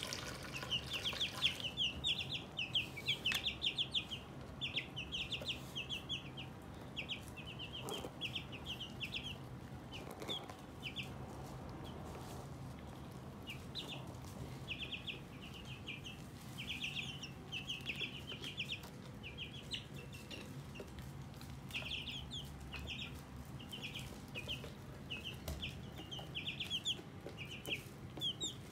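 A flock of eleven-day-old broiler chicks peeping continuously in quick runs of short, high notes. Water poured from a plastic jug into their drinker tray splashes at the start and stops about a second and a half in.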